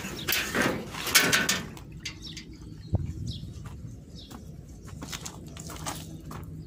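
Phone microphone scuffing and knocking against clothing as the phone is handled and carried, with a low steady hum underneath.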